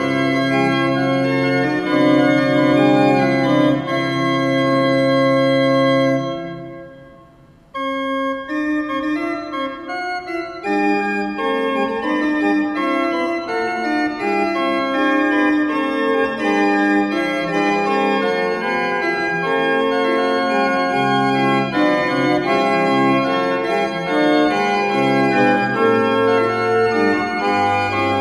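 Background organ music playing held chords; it fades out about six seconds in and starts again abruptly near eight seconds.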